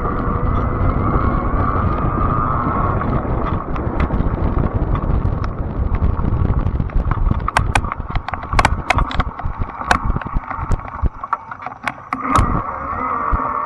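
Fat-tire electric bike riding with its motor giving a steady whine over tire and wind rumble. For several seconds in the middle the whine fades while the bike rattles and clicks over rough ground. The whine comes back strongly near the end.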